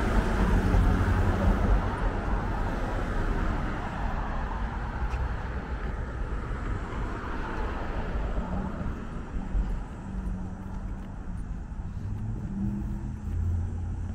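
Street traffic: a car passing close by at the start, its noise fading over the first several seconds, then quieter passing cars with a low engine hum.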